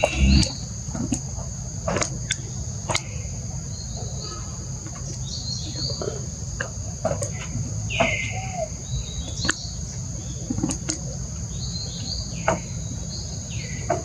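Steady high-pitched insect drone, like crickets or cicadas, under a low rumble, with scattered short chirpy calls and a few clicks.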